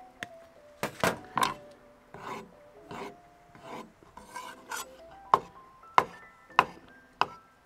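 Chef's knife dicing a ripe avocado on a wooden cutting board: sharp knocks of the blade on the board, about one a second in the second half, over soft background music.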